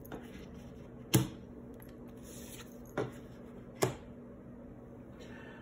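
Three sharp, short taps over quiet room tone, about a second in, about three seconds in and just before four seconds; the first is the loudest.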